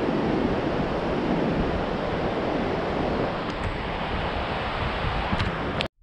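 Ocean surf washing onto a sandy beach, mixed with wind buffeting the microphone. The sound cuts off abruptly near the end.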